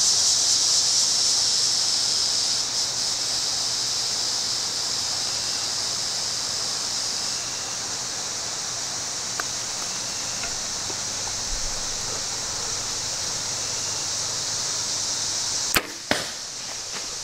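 Steady high-pitched insect chorus that eases off about halfway. Near the end comes a bow shot at a deer: two sharp cracks about a third of a second apart.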